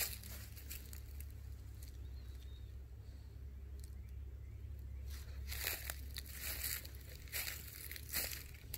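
Footsteps crunching through dry leaf litter on the forest floor: one at the start, a quieter lull, then steps about once a second from about five seconds in.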